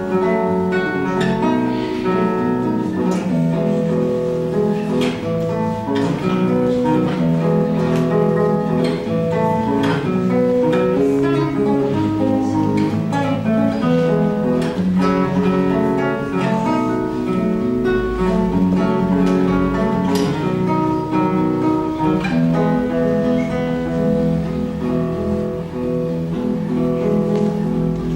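Instrumental music led by a plucked acoustic guitar, playing chords and melody at a steady pace.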